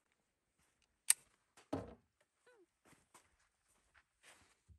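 Pistol being handled after a string of fire: one sharp click about a second in, a duller knock shortly after, then faint scuffs of footsteps on dirt.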